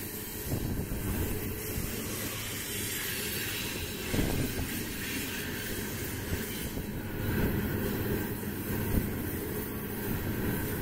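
Coal train cars rolling past: a steady rumble of steel wheels on the rail, with a few louder clanks about four, seven and a half, and nine seconds in.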